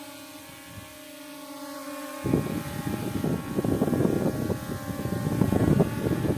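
S9S quadcopter drone's brushless motors and propellers running with a steady multi-tone whine. About two seconds in, a louder, gusty rumble sets in on top.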